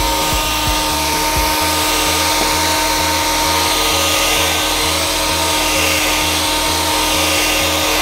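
Electrolux Ergorapido ZB3423B cordless stick vacuum running steadily with a high whine while its brush nozzle picks up dust.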